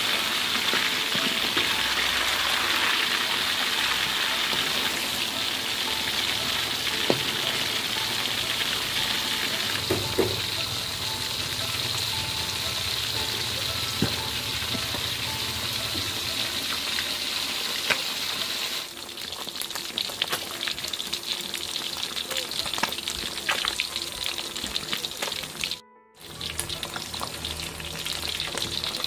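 Fish deep-frying in hot oil in a metal wok: a steady crackling sizzle, with a few sharp clicks along the way. The sizzle drops quieter about two-thirds of the way through, and there is a brief break near the end.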